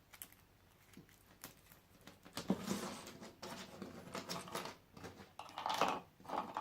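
Light clicks, taps and scraping from small hard objects being handled on a bench, typical of 18650 cells and plastic battery casing being picked up and set down.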